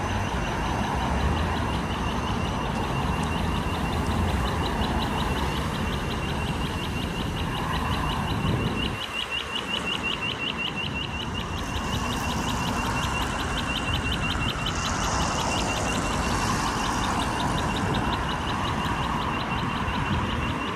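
Audible pedestrian crossing signal beeping rapidly, about four or five short high beeps a second, over the hum of street traffic. The low traffic rumble drops away about nine seconds in.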